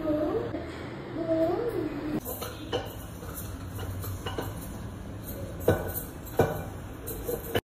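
Stainless steel plate clinking and knocking as ingredients are set down on it: a handful of sharp metal knocks, the loudest two about two-thirds of the way through. A wavering, voice-like call sounds in the first two seconds, and the sound cuts off abruptly just before the end.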